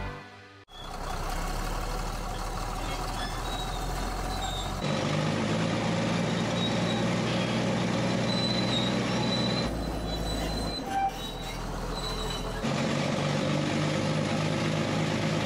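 Caterpillar D8 crawler dozer's diesel engine running as the machine is driven, heard from the operator's seat. Its low note and loudness jump abruptly a few times.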